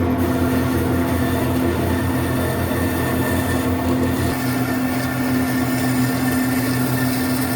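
Electric woodworking power tool running steadily with a constant motor hum and the noise of cutting or sanding, the low part of the hum shifting slightly about four seconds in.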